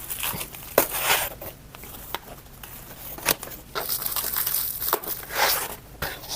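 Cardboard and plastic packaging being handled: irregular crinkling and rustling, with a few sharp knocks.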